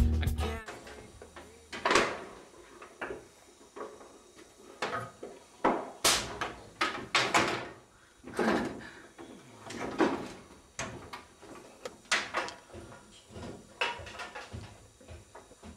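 Wooden knocks and clunks of boards being handled and set against timber framing, at uneven intervals of about one a second.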